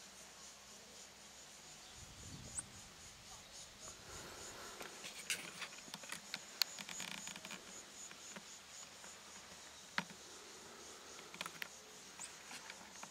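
Faint ambience: a steady, high, slightly pulsing insect trill, with scattered light clicks and taps throughout.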